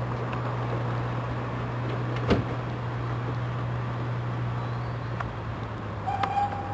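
Diesel locomotive running steadily in the distance as it approaches, heard as a low hum, with a sharp knock about two seconds in and a brief high tone near the end.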